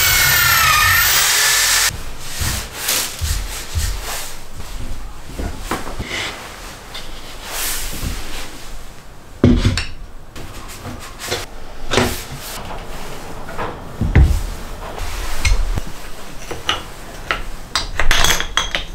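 A Bosch electric drill runs for about two seconds as it bores into wood, its pitch wavering under load, then stops suddenly. The rest is knocks, clicks and rubbing as power tools and wooden parts are handled and fitted into a jig, with two sharper knocks about halfway and near the end.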